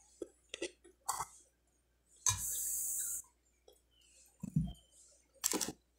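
Close-up mouth sounds of a person chewing toasted bread: small clicks and smacks, a breathy rush lasting about a second just after two seconds in, and a short throaty sound later on.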